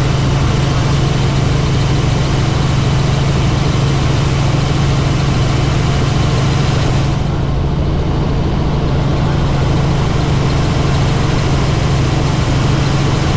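Helicopter in flight: a loud, steady drone with a strong low hum under a dense rushing noise. The higher part of the noise briefly thins about seven seconds in.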